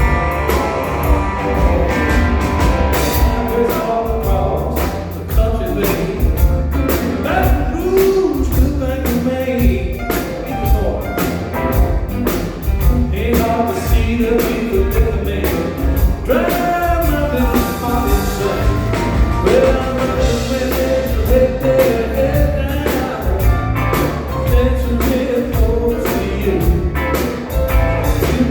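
A band playing a rock-and-roll song, with a singer over a steady beat of drums and bass.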